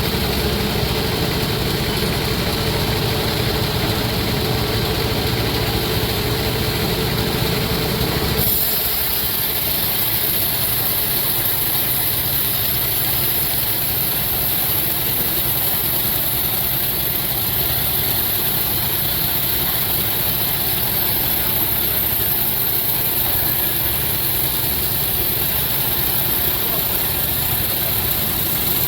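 Sawmill machinery running steadily, an engine-like drone. About eight seconds in the sound changes abruptly: the low rumble falls away and a steady high hiss carries on.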